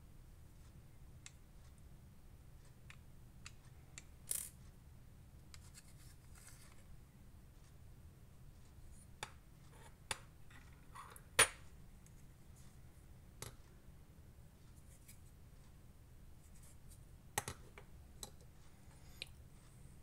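Irregular light clicks, taps and scrapes of an out-the-front knife's hard handle parts being handled and fitted together. The sharpest click comes about eleven seconds in.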